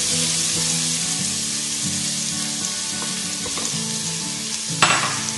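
Sliced onions sizzling in hot coconut oil in an aluminium pressure cooker, a steady hiss, stirred with a wooden spatula. A single sharp knock sounds near the end.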